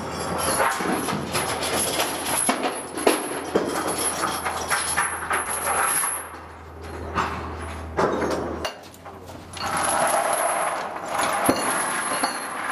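Clanks and knocks of metal gear, chain and shackles, on a landing craft's deck over a low steady machinery hum that cuts off about nine seconds in.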